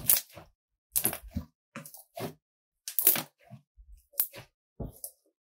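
Cotton candy slime being squeezed and kneaded by hand, giving a string of short, separate squishes and crackling pops, about one or two a second.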